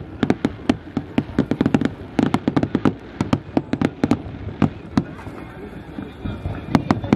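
Aerial fireworks bursting: a rapid string of sharp bangs and crackles, thinning out after about five seconds, with two more sharp reports near the end.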